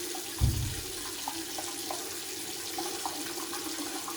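Water running steadily from a tap into a sink, with a single low thump about half a second in.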